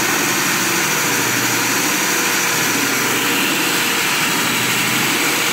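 WEKA electric diamond core drill running steadily, its water-cooled core bit grinding down through concrete.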